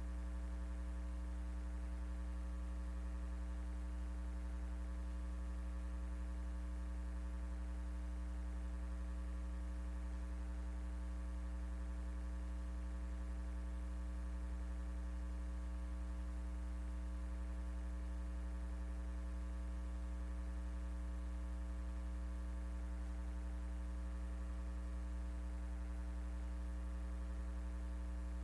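Steady electrical mains hum: a low, unchanging buzz with no other sound over it.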